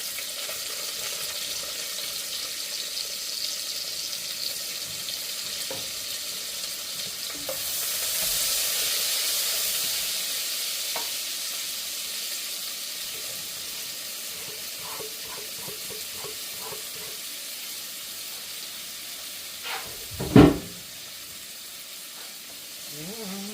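Chopped onions, bell peppers and garlic sizzling in hot sausage fat in a pot, a steady hiss that starts suddenly and swells louder for a couple of seconds about eight seconds in. A loud knock sounds once near the end.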